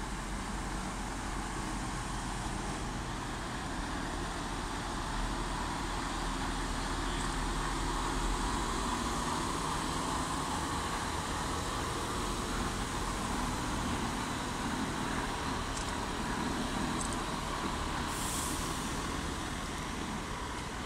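Heavy-haul truck's diesel engine and the tyres of its multi-axle trailer running steadily as the rig passes slowly, with a brief hiss near the end.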